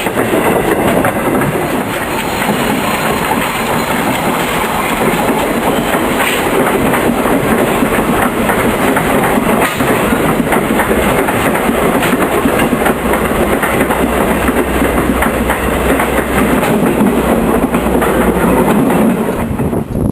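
Steam excursion train's cars rolling past close by, wheels clacking steadily over the rail joints with a continuous rumble.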